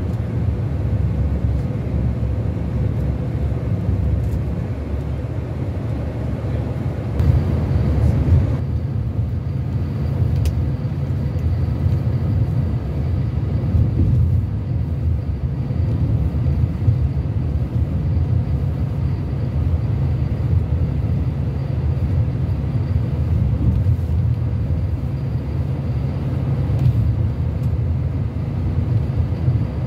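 Mercedes-Benz O-500RSD coach's diesel engine running steadily with a low drone, with a brief louder rush of noise about seven seconds in.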